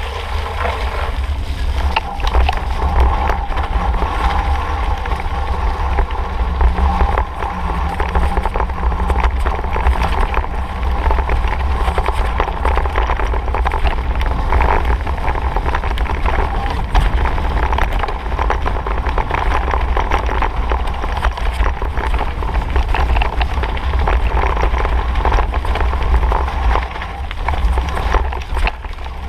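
Mountain bike ridden fast down a dirt trail: tyres rumbling over the ground, with frequent knocks and rattles from bumps, under heavy wind buffeting on the microphone.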